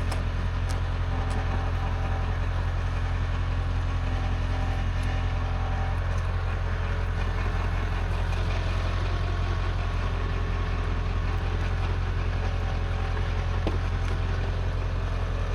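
Motor vehicle engine running with a steady low drone.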